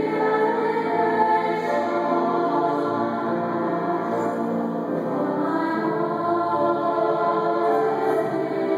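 Mixed chamber choir singing slow, sustained chords.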